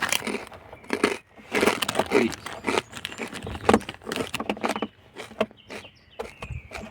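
Pork rinds being bitten and chewed: loud, irregular crunching. It is densest over the first five seconds and thins to scattered crackles near the end.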